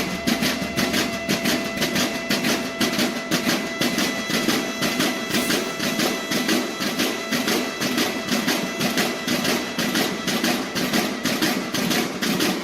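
Mexican banda de guerra snare drums playing a fast, even marching cadence.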